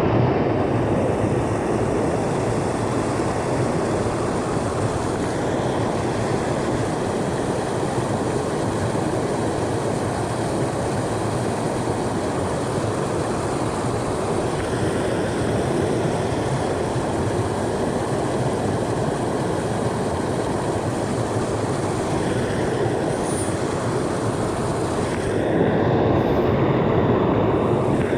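Steady rush of a mountain creek's flowing water, getting a little louder near the end.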